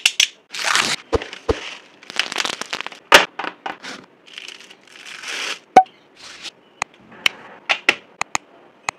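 Unboxing handling noise: packaging rustling, crinkling and tearing, with a run of sharp clicks and knocks, more frequent in the second half, as the parts are handled and a charger plug is pushed into a wall socket.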